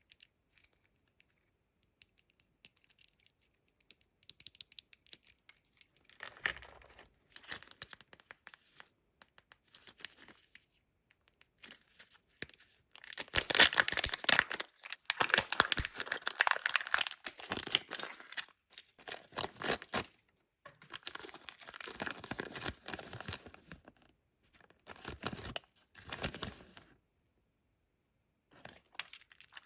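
Kinder Joy egg wrappers being torn open and crinkled by hand, in irregular crackling bursts with short pauses, loudest about halfway through.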